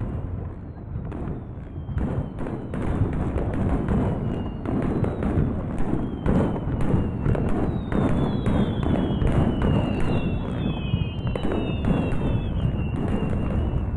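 Fireworks display: a continuous run of booms and crackling bursts, with several high whistles falling in pitch in the second half.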